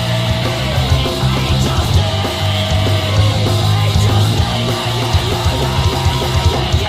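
Rock music with electric guitar and heavy bass, played without talk over it.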